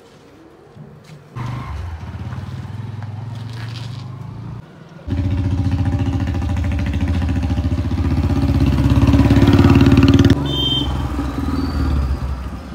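Motorcycle engine running: a steady low engine note, then a louder stretch about five seconds in that builds as the bike rides along carrying two riders. It drops sharply about ten seconds in.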